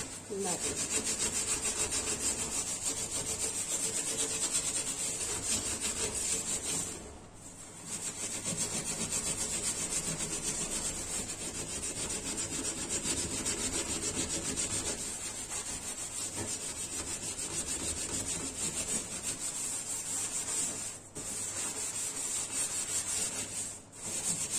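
Steel wool pad scrubbing a stainless steel gas stove top around a burner to scour off stuck-on grime. It is a continuous rasping scrub of quick strokes, with short breaks about seven seconds in and twice near the end.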